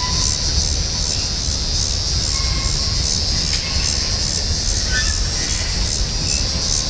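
Freight cars of a manifest train, mostly tank cars and hoppers, rolling across a railway overpass. There is a steady low rumble and a steady high hiss, and a few brief wheel squeals sound along the way.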